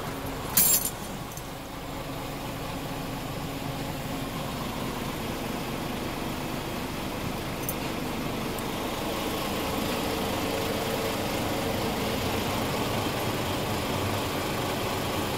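Scania R450's 13-litre inline-six diesel idling steadily, heard from inside the cab. A brief sharp clatter about half a second in.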